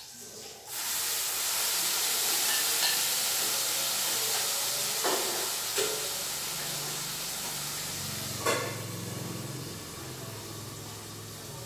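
Food in a hot frying pan starts sizzling loudly about a second in and keeps frying with a slowly fading hiss as it is stirred with chopsticks. A few sharp clicks of the chopsticks against the pan come through.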